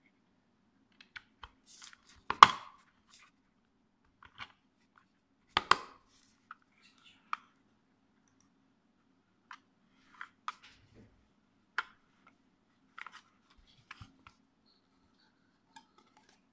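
3D-printed plastic parts of a battery box being handled and fitted together: scattered light clicks and knocks, with two louder knocks about two and a half and six seconds in.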